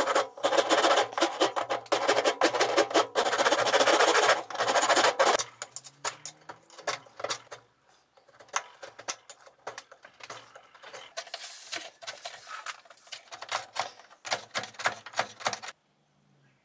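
Wood being worked by hand on a block held in a vise. For about five seconds there is a fast, continuous scratchy scraping, then scattered scraping strokes and clicks, which stop about a second before the end.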